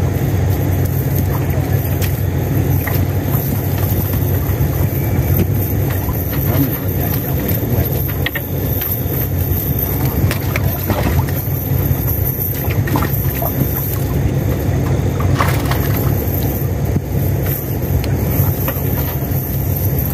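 Small boat engine running steadily at idle, an even low drone, with a few light clicks as the cast net is handled.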